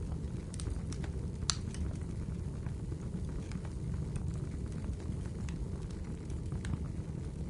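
Wood fire in a fireplace burning with a steady low rumble and scattered sharp crackles and pops, the loudest about one and a half seconds in.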